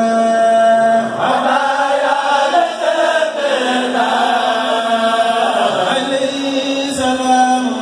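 A kourel, a group of men, chanting a Mouride khassida (religious poem) together into microphones, holding long notes and sliding between them in melismatic phrases. A brief low knock sounds about seven seconds in.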